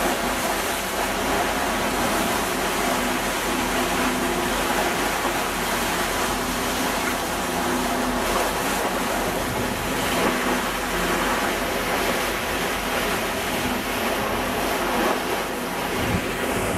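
Steady rush of sea water and wind around a catamaran under way, an even noise that holds level throughout.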